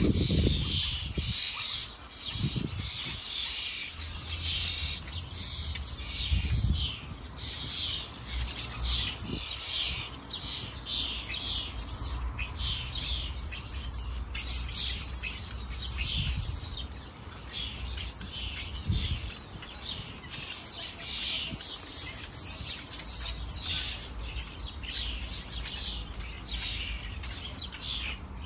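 Garden birds chirping continuously, many quick high chirps overlapping one another, with a faint low rumble underneath.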